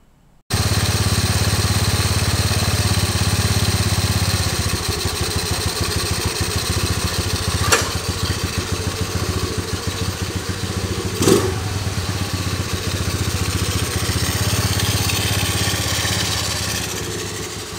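Honda Navi's small air-cooled 109 cc four-stroke single-cylinder engine running steadily at idle. Two sharp clicks come about 8 and 11 seconds in.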